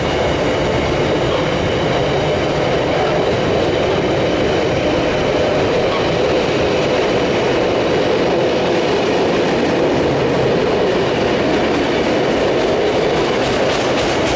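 Container wagons of a freight train rolling past, a loud, steady rumble of wheels on the rails.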